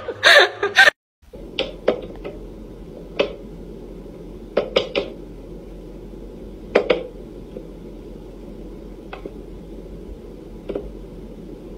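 Sharp, irregular clicks and knocks from a wooden whack-a-mole cat toy as a cat paws at its pop-up mice, a cluster of three near the middle, over a steady low room hum.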